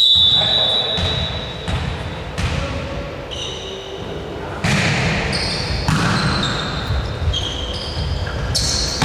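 Indoor basketball game: the ball bounces on the court floor and sneakers squeak in short high chirps, over and over.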